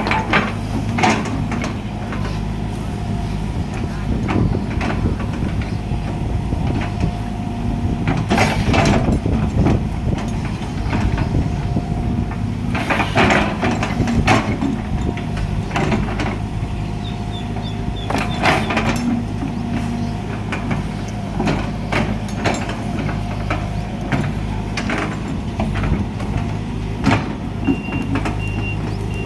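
Heavy diesel truck engine idling steadily, with several short hisses and, near the end, a reversing beeper sounding in regular pulses.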